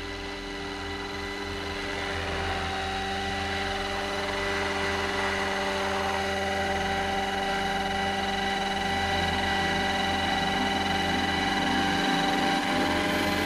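Scale RC helicopter running at a steady rotor speed as it comes in to land. Its main and tail rotors and drive make a constant whine over a hum that holds one pitch and grows gradually louder as it descends onto the pad.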